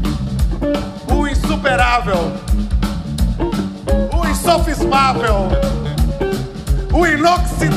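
Live rock-and-roll band playing: a steady drum kit beat with bass and electric guitar, and a lead line whose notes bend and waver in several phrases.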